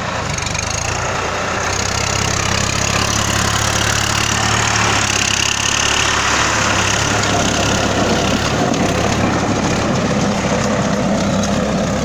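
Swaraj 960 tractor's diesel engine running steadily under load as it drives a rotavator through wet soil, with the churning of the tiller mixed in.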